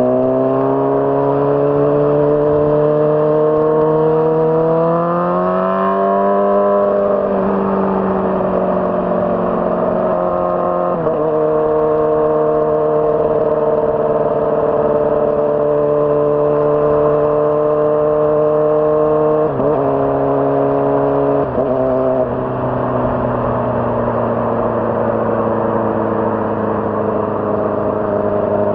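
2006 Honda CBR600RR's inline-four engine running steadily, its note rising over the first several seconds and then holding. Two brief dips in the note come about two-thirds of the way through, after which it settles a little lower.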